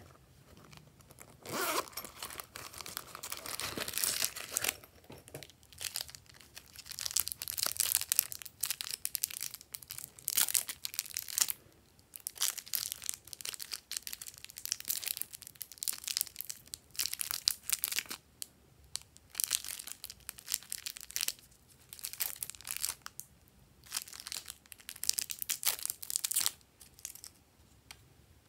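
Plastic wrapping crinkling and tearing in repeated short bursts as small packets of slime add-ins are opened by hand.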